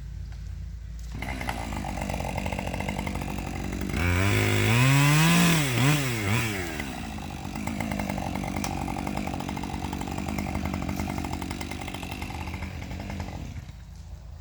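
Husqvarna 545 Mark II two-stroke chainsaw idling, then throttled up about a second in and run hard. Its pitch swings up and down several times in the loudest stretch around the middle, then it eases back and drops to idle near the end.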